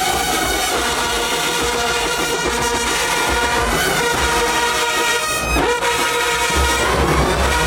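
A marching band's brass section playing loud, held chords, with low drum hits growing stronger near the end.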